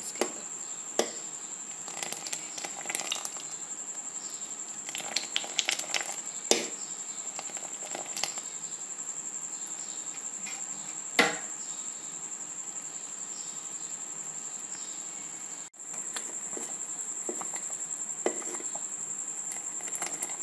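A metal ladle stirring milk that is boiling down thick in a metal pot, with scattered clinks and scrapes against the pot over a steady hiss and a faint high whine.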